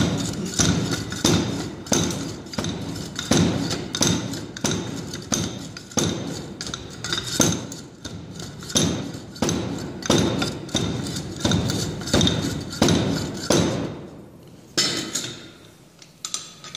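Standard Proctor compaction rammer dropping inside its metal guide sleeve onto soil in the compaction mold: a steady run of dull thuds, about one and a half a second, compacting a soil layer with its set of 25 blows. The blows stop about three-quarters of the way through, followed by a few light metallic clinks.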